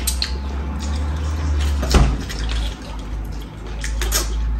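Mealtime sounds at a dining table: a few short clicks and taps of hands, plates and cutlery, the sharpest about two seconds in, over a steady low rumble.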